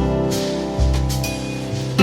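Background music: guitar and bass over a light drum beat, with a bass note about every second.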